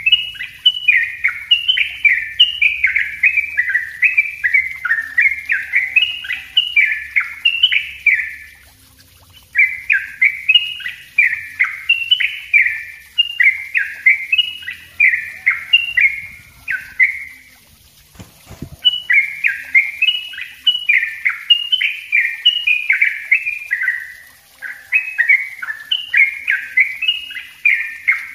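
Yellow-vented bulbul (trucuk) singing its rapid, dense 'ropel rapat' song: long runs of bubbly, closely packed chattering notes. The runs break off briefly three times, about nine, seventeen and twenty-four seconds in.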